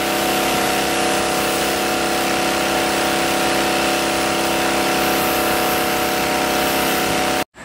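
Diesel engine of clean-up machinery, a Bobcat skid-steer loader or a tip truck, running steadily at constant revs with a steady drone. It cuts off suddenly near the end.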